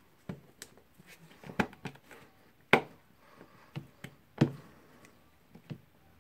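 Hard plastic and metal parts of a Bosch GSR 18V-Li cordless drill being handled and pressed into its plastic housing half: a scatter of sharp clicks and knocks as the motor and carbon brush holder are worked into place, with two louder knocks near the middle.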